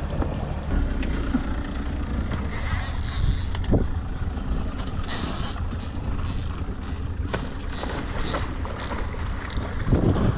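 Steady low rumble and wind noise aboard a sailboat under way, with a few faint knocks.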